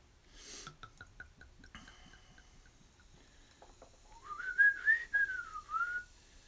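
Cola poured from a glass bottle into a glass, with a soft fizz and a run of light ticks. About four seconds in, a clear whistling tone rises, wavers and falls back for about two seconds.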